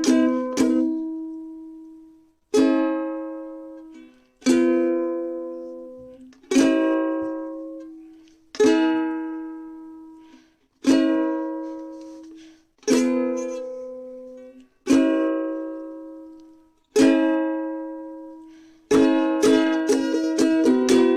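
Background music on a plucked string instrument: one chord strummed about every two seconds and left to ring out and fade, changing to quick, repeated strumming near the end.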